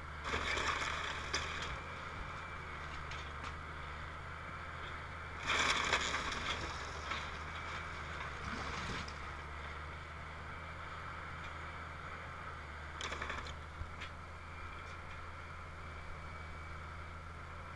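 Link-Belt excavator's diesel engine running steadily while its bucket tears into a wooden house, with three bursts of crunching, cracking timber: one at the start, the loudest about five and a half seconds in, and a shorter one about two thirds of the way through.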